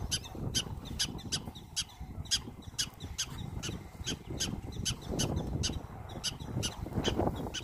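Prairie dog barking: a long, even series of short, high-pitched barks, about three a second.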